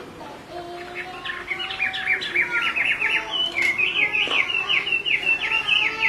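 Chinese hwamei calling in a fast run of short, falling notes, several a second, growing louder about two seconds in.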